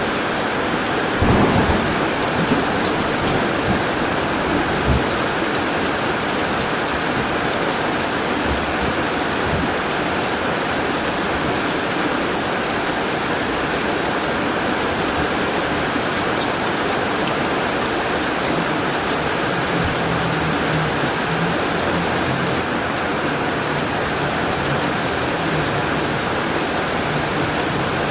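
Heavy rain drumming steadily on a tin roof. There is a thunderclap about a second in, followed by a few low thunder rumbles over the next few seconds.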